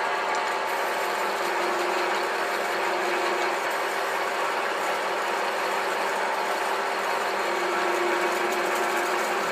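Metal spinning lathe running steadily with a constant motor hum, while a hand-held tool is pressed against the spinning 22 mm copper tube to reform it.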